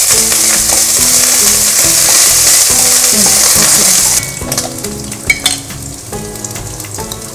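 Peanuts, chana dal, green chillies, curry leaves and ginger frying loudly in hot coconut oil in a steel kadai, stirred with a wooden spatula. About four seconds in the sizzle drops suddenly to a quieter frying, with clicks and scrapes of the spatula against the pan.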